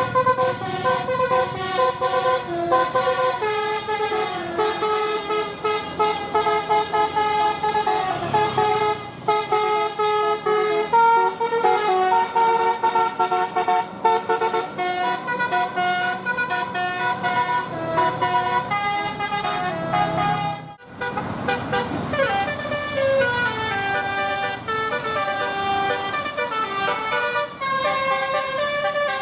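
Indonesian 'telolet' bus horn, a multi-trumpet musical air horn, playing fast runs of stepped notes like a tune. About 21 seconds in the sound breaks off abruptly and another horn tune starts, with some falling notes.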